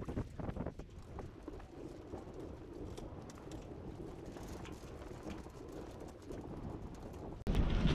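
Scattered light knocks and rattles aboard a small sailboat over a low hiss of wind. Near the end, wind suddenly hits the microphone loudly.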